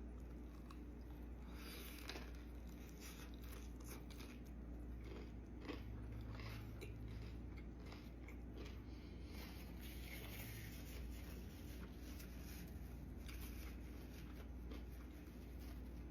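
Crunching bites and chewing of crispy fried hot chicken, close to the microphone: many short crackles and crunches in a rough, uneven run over a faint low hum.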